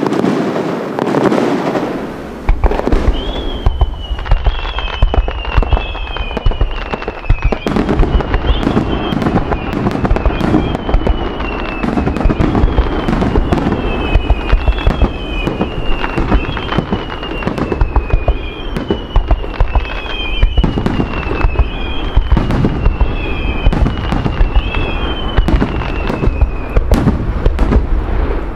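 Fireworks going off: a dense run of sharp bangs and crackles over a low rumble. A falling whistle repeats about every second and a half from about three seconds in until near the end.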